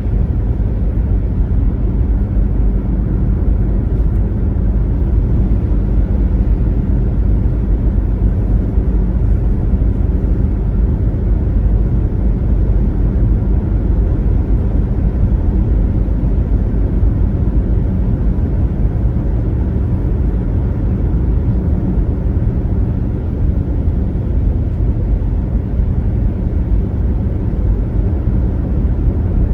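Car driving at highway speed: a steady low rumble of tyres on the road and the engine, with no change through the stretch.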